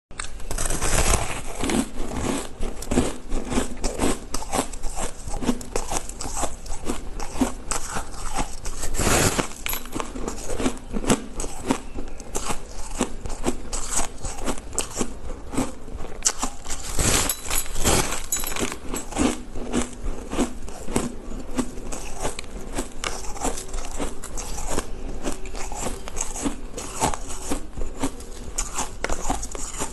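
Biting and chewing into a slab of frozen, coloured shaved ice: a dense, continuous run of crisp crunches and crackles, with a few louder bites about nine seconds in and again around seventeen seconds.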